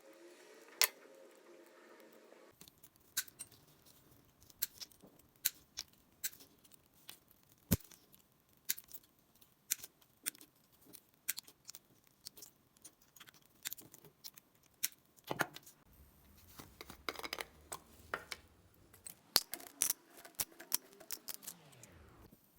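A long series of sharp, irregular clicks and taps, roughly one or two a second, like small hard objects or a tool being handled on a work surface.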